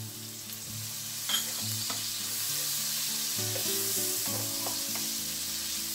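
Diced tomato, onion and garlic sizzling in butter in a wok, with a wooden spatula stirring and scraping against the pan. The sizzle grows louder about two seconds in.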